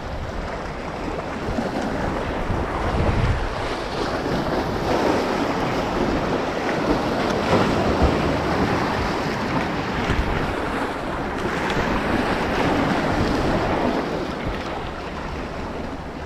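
Surf washing in and wind buffeting the microphone, a steady rushing that swells and eases over a few seconds.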